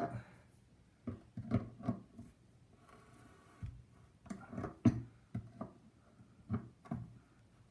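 Irregular clicks and knocks of a hand tool gripping and turning the retaining nut that holds a bathroom faucet's replacement cartridge, as it is tightened down; the loudest knock comes near the middle.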